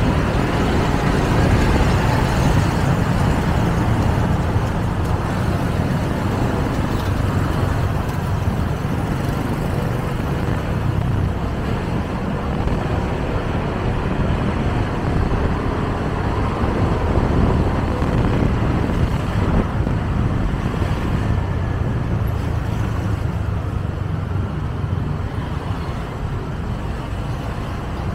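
Ride on a motorcycle taxi through city traffic: a steady mix of engine, tyre and surrounding traffic noise, heaviest in a low rumble.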